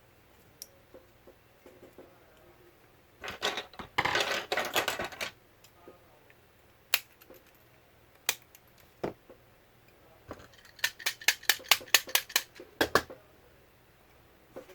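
Hand work on a battery pack's cells and casing: a short scraping rattle a few seconds in, three separate sharp clicks, then a quick run of about a dozen clicks, roughly five a second, near the end.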